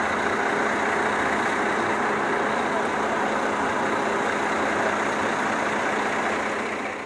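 Idling bus engines and falling rain: a steady, even noise that dips slightly near the end.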